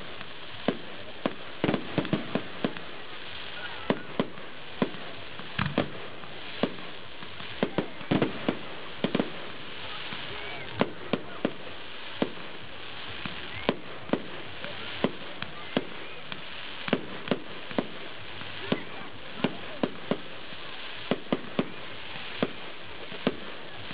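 Aerial fireworks bursting in quick, irregular succession: many sharp bangs and pops, sometimes several a second, over a steady background hum.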